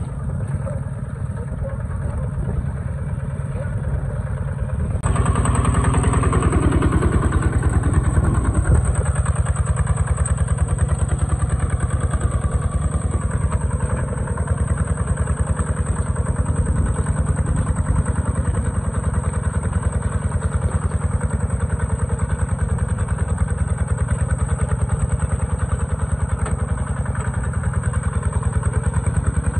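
Kubota tractor's diesel engine running steadily, jumping louder about five seconds in and holding at that level.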